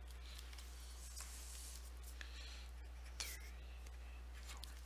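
A marker drawing short tick marks on paper: a few brief, faint scratches, over a low steady hum.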